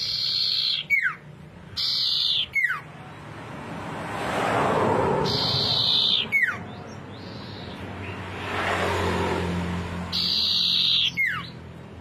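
Common iora singing: four loud phrases, each a held high whistle that ends in a quick falling slur. Between the phrases a soft rushing noise swells and fades twice.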